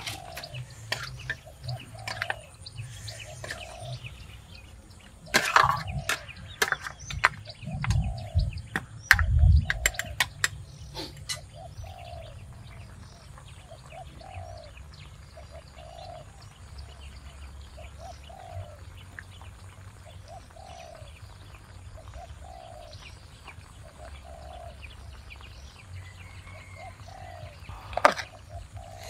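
A bird calling over and over, one short falling note about once a second. Scattered clicks and knocks sound over it, the loudest a few heavy low thuds about a third of the way in, with a sharp knock near the end.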